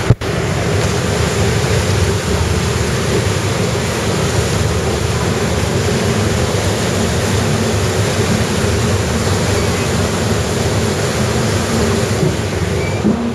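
Train running along tracks submerged in floodwater: a steady rushing of water and running gear. There is a single sharp click right at the start.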